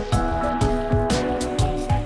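Background music: held notes over a steady beat of about two thumps a second.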